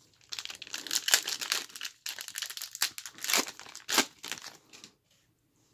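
Foil trading-card pack being torn open and crinkled by hand: dense crackling with a few sharp, louder rips, stopping about five seconds in.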